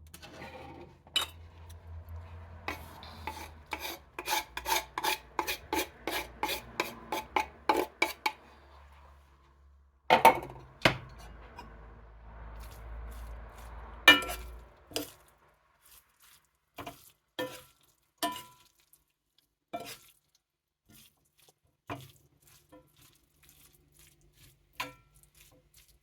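Metal kitchen utensils clinking and scraping against a cooking pot: a quick run of clicks, about four a second, for the first eight seconds, a few louder knocks about ten and fourteen seconds in, then scattered clinks.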